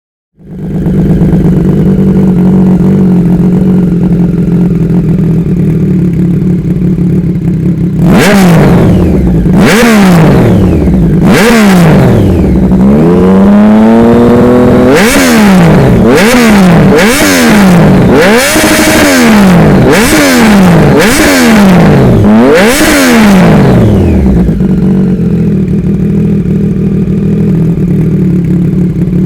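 A 2019 Triumph Street Triple RS's 765 cc inline three-cylinder, warmed up, running through an SC-Project CR-T titanium exhaust. It comes in sharply at a steady idle. About eight seconds in come three quick throttle blips, then one slower rev climbing and held, then a run of about eight more quick blips. It then settles back to idle.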